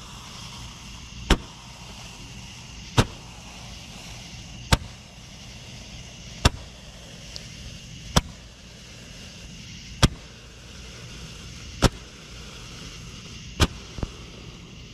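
A firework on the ground going off in sharp bangs at an even pace, eight in all, one about every 1.8 seconds, with a smaller pop right after the last one near the end.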